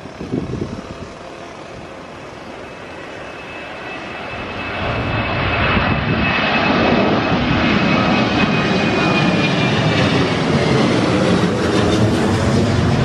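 Twin-engine jet airliner taking off and climbing out overhead: the jet-engine roar builds over the first few seconds, then holds loud and steady with a high whine running through it.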